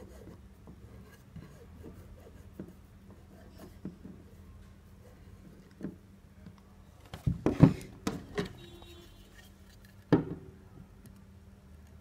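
Faint rubbing and small ticks as a finger works glue into a wooden chair leg's mortise, then wooden chair parts knocked while being handled and fitted together: a cluster of knocks about seven seconds in and one sharp knock about ten seconds in.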